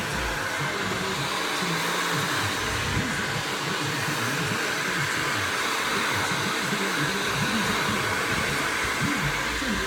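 Hair dryer running steadily, a continuous even blowing hiss.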